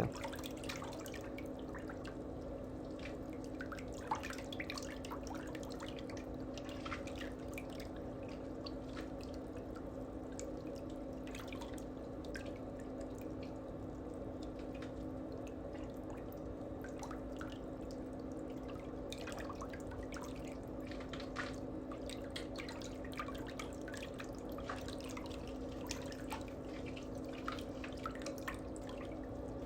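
A steady low hum held at two pitches, with faint, irregular small clicks and ticks scattered through it.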